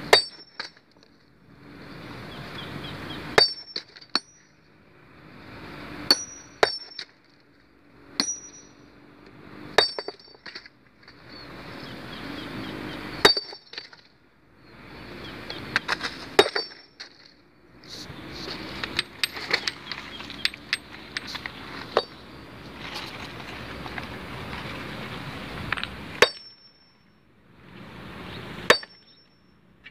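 Sledgehammer blows on a large stone block being split by hand: sharp metallic clinks with a brief high ring, one every two to three seconds, with a quicker run of several blows about two-thirds of the way through. A rushing noise fills the gaps between blows.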